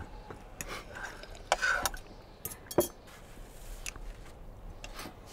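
Scattered light clinks and knocks of cups and tableware on a table, with a sip from a cup about a second and a half in and a sharp clink just before the three-second mark.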